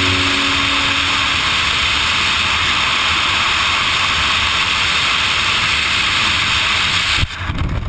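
Steady rush of freefall wind over a helmet camera's microphone during a BASE jumper's tracking flight. It cuts off sharply near the end, leaving a few crackles.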